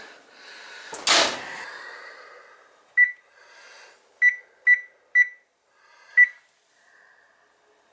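A thud about a second in as the oven door closes, then five short electronic beeps from the oven's control keypad as its buttons are pressed to set it.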